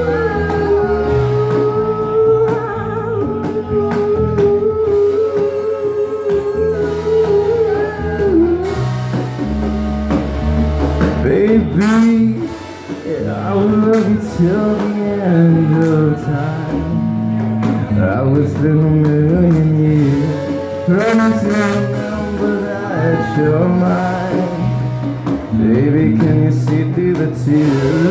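Live band playing a blues-style song with guitar and singing. A long held note carries the first eight seconds or so, then the melody moves with wavering pitch over a steady low accompaniment.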